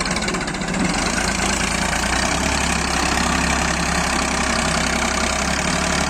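Massey Ferguson tractor's diesel engine running steadily while pulling a heavily overloaded trolley; its low note firms up about two seconds in.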